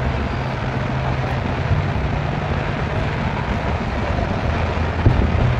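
Fan-shaped ground fountain fireworks firing together: a steady rushing hiss over a low rumble. A few sharp thuds come near the end.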